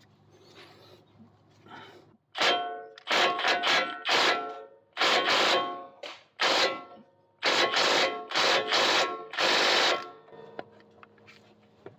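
Impact wrench hammering in about ten short trigger bursts on a 22 mm lower ball joint nut, trying to break it loose; the nut does not come free.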